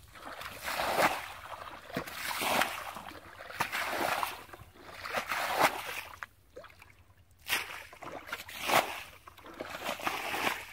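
Muddy water bailed with a bucket from a shallow paddy pool: repeated scoops and pours, each making a slosh and splash, about one every second and a half, with a brief pause a little past the middle.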